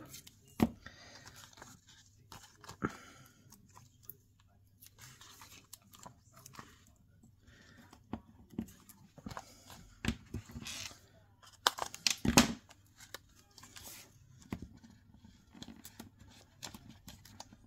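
Paper handling on a craft desk: small cardstock pieces rustling and crinkling under the fingers, with scattered light taps. Louder rustles come about ten and twelve seconds in.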